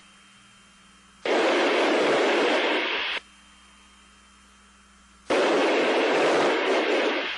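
Shuttle flight-deck intercom audio: two loud bursts of rushing hiss, each about two seconds long, one starting about a second in and one about five seconds in, with a faint steady hum between them.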